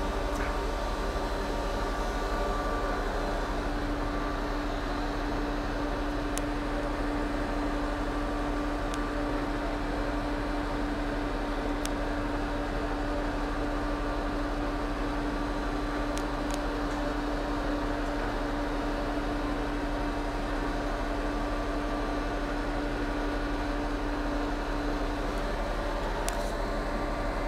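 Steady hum of running machinery: an even mechanical drone with one strong held mid-low tone and fainter steady tones above it, and a few faint ticks.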